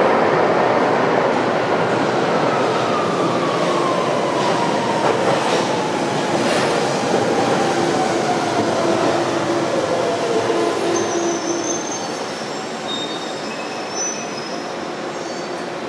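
London Underground 1992 Stock train running into the platform and braking to a stop: a loud rumble of wheels on rail, with a whine from its traction motors that falls steadily in pitch as the train slows. There are a few sharp wheel clicks midway, and high brake squeals near the end as it comes to a halt.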